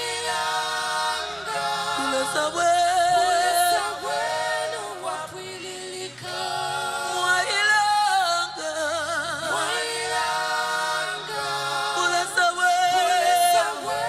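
Gospel praise-and-worship singing by a group of singers on microphones, with held notes, vibrato and melodic runs and little or no instrumental backing to be made out.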